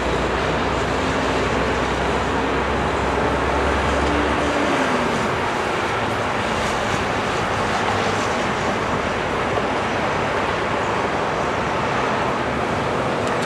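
Boeing 737-700's CFM56-7B jet engines at takeoff thrust, a steady rushing jet noise heard from behind as the airliner accelerates down the runway and lifts off.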